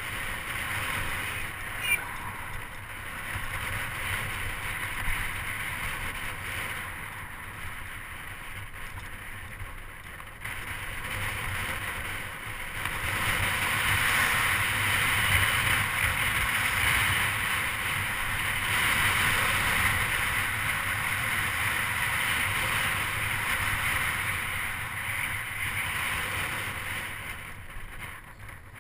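Steady wind noise over the microphone of a camera on a moving bicycle, with road noise from tyres rolling on cracked asphalt; it grows louder about halfway through.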